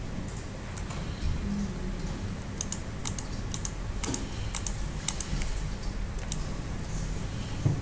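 Computer mouse and keyboard clicking: a quick run of about ten sharp clicks, several in close pairs, in the middle of the stretch, with a low steady hum of room tone under them.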